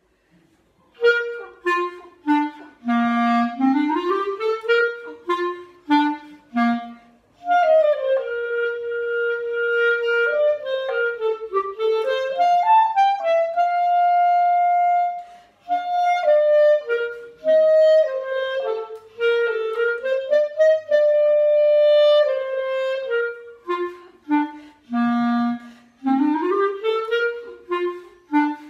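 Soprano clarinet played solo, starting about a second in: quick runs that climb and fall, with long held notes through the middle of the passage.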